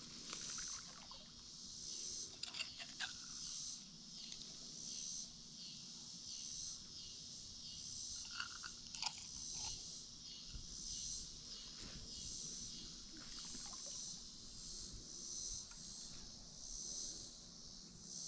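A chorus of insects: a high buzzing that swells and fades about once a second. A few faint scattered clicks and taps sit over it.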